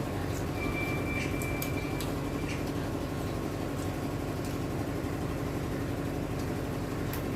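A steady low mechanical hum with a few faint clicks, and a brief thin high tone about a second in.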